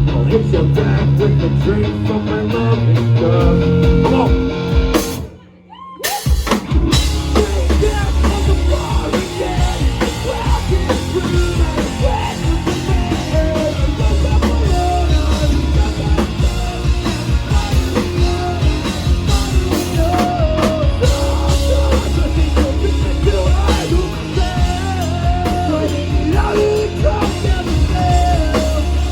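Rock band playing live: drum kit, guitars and a sung lead vocal. The music drops out sharply for about a second, roughly five and a half seconds in, then comes back in full, with the singing running on through the rest.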